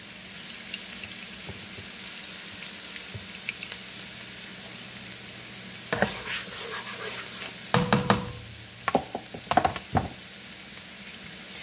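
Chopped garlic and onions sizzling steadily in olive oil in a nonstick pan. In the second half a spatula knocks and scrapes against the pan several times as they are stirred.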